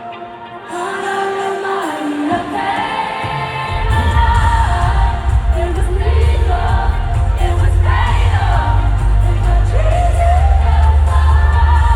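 Live pop concert music heard from the crowd: a lead vocal sings a melody, and a heavy bass beat comes in about four seconds in and keeps going under the singing.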